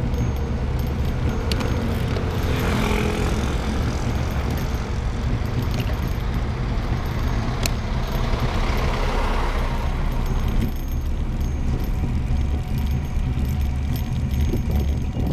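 Steady rumble of wind over a bicycle-mounted microphone on a downhill ride, with a vehicle sound swelling and fading about eight to ten seconds in as the bike passes a stopped double-decker bus.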